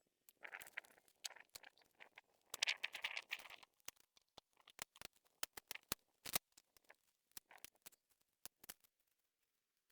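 Close handling noise: a few seconds of rustling mixed with clicks, then scattered sharp clicks and taps.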